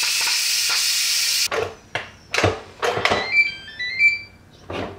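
Electric pressure cooker venting steam from its pressure release valve in a quick release, a steady hiss that cuts off suddenly about a second and a half in as the pressure is gone. Then several knocks and clicks with a brief squeak as the lid is turned and unlocked.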